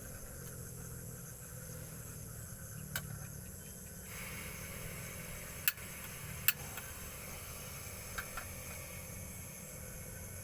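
Steady night ambience with a faint high insect drone, broken by a few sharp knocks and clinks from handling camp cooking gear. The two loudest knocks come a little past the middle.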